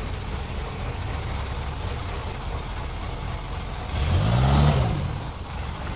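Rice combine harvester's diesel engine running steadily, revving up and back down once about four seconds in.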